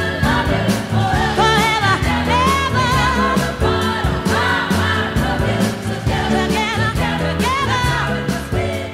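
Music with a singing voice: a vibrato vocal line over sustained chords and bass, with a steady beat.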